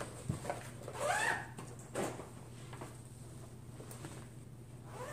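Quiet rustling and soft knocks of a fabric cross-stitch project bag being handled and rummaged through, with a brief rising pitched sound about a second in.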